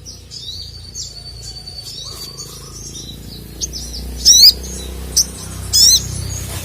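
Sogon (sogok ontong) sunbird singing: quick, high-pitched chirps and a thin held whistle, then two loud rising chirps, one a little past the middle and one near the end.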